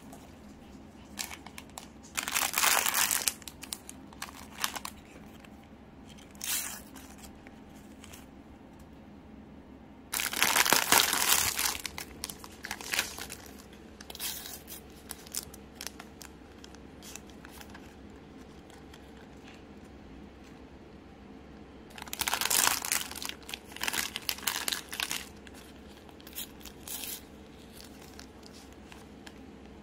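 Plastic bread wrappers crinkling and the paper sleeves of collectible stickers being torn open by hand, in three louder spells of rustling and tearing (near the start, in the middle and about three-quarters through) with lighter rustles between.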